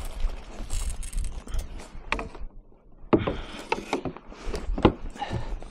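Irregular knocks and clatter on a kayak, with a louder rush of noise about three seconds in.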